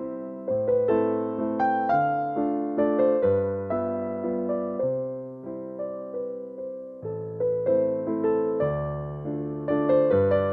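Background music: a gentle electric piano melody over bass notes, each note struck and fading.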